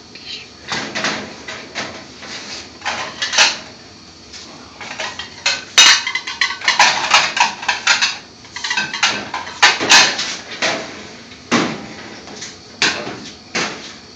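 Pots, pans and metal utensils clattering: irregular clinks and knocks, a few of them sharp and loud.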